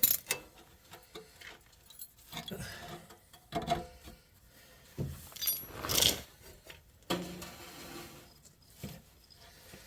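Metal clinking and scraping: a steel exhaust pipe section being handled and worked onto the joining pipe, with a louder scrape about five to six seconds in.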